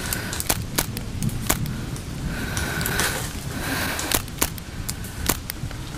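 Airsoft rifle fired in single shots: about eight sharp cracks at uneven intervals, over a steady low rumble on the camera microphone.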